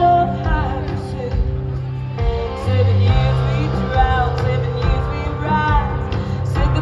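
Live band music from a concert stage, with a singer's voice over a steady bass and guitar.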